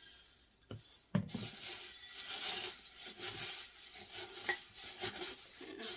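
Potting mix of perlite and bark being poured and shaken from a container into a plant pot: a knock about a second in, then a steady gritty rustle with many small ticks of the chunks landing.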